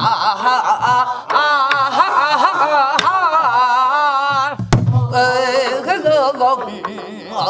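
Several women singing a Namdo folk song together, their voices bending and wavering with wide vibrato, to strokes on buk barrel drums. Two sharp drum strokes stand out, about three seconds in and again near five seconds.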